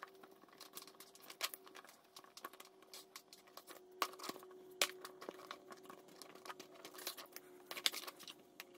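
Soft rustling and scattered small clicks of gloved hands handling and shifting the wires of an engine wiring harness, with a faint steady hum underneath.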